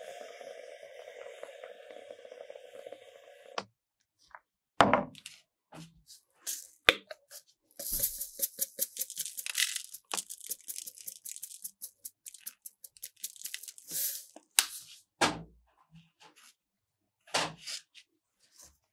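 Metal spatulas scraping and tapping on an ice cream roll cold plate, in quick dense strokes in the middle. This follows a steady noise that cuts off abruptly a few seconds in.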